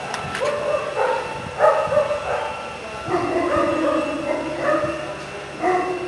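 A dog barking and yelping in a series of short pitched calls, roughly two a second.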